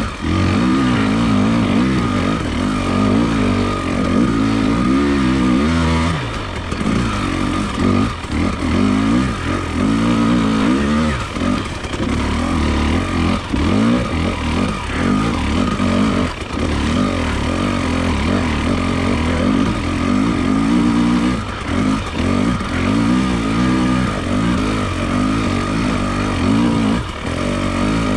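Enduro motorcycle engine under way, revving up and falling back again and again as the throttle opens and closes.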